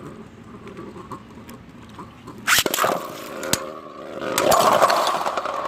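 3D-printed Beyblade spinning tops launched into a Battle Dome stadium with a sharp snap about two and a half seconds in, then a few clicks and a dense whirring clatter as they spin and collide, ending in a double burst where both tops fly apart.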